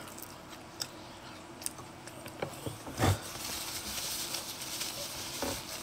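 A few small clicks, then a thump about three seconds in, followed by the steady rustle of a paper towel being unfolded and handled.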